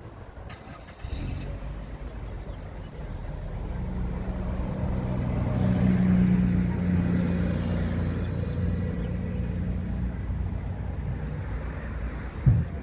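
A motor vehicle's engine passing by, growing louder to a peak about halfway through and then fading. A brief low thump near the end.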